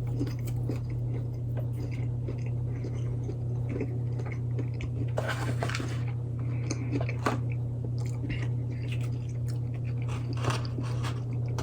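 A person biting and chewing a breaded spicy chicken nugget dipped in ghost pepper ranch, close to the microphone: irregular small crunches and chewing clicks, with a steady low hum underneath.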